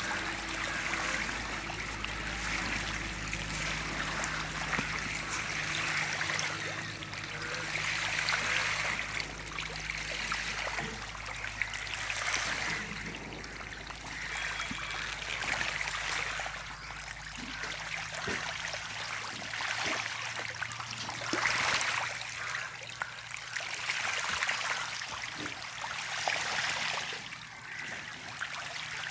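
Water trickling and splashing in a biofloc fish tank, rising and falling in waves. A low steady hum underlies it and drops away about eighteen seconds in.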